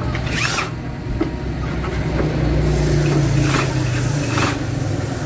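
An engine running with a low steady hum that rises in pitch about two seconds in, with a few brief scraping noises.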